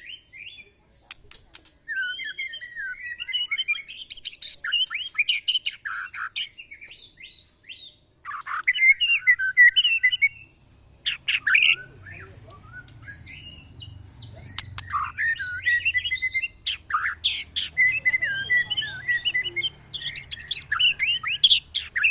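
White-rumped shama (murai batu) singing in bursts of varied whistles, harsh chatter and high trills, with short breaks about a second in and around seven seconds in.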